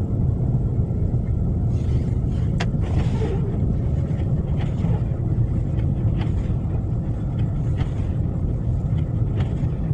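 Car driving on a snow-covered road, a steady low rumble of engine and tyres heard from inside the cabin, with a few faint clicks.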